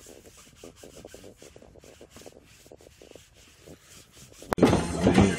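A handheld roller rubbed back and forth over beard stubble in quick, faint scratchy strokes. About four and a half seconds in, loud music and voices cut in suddenly.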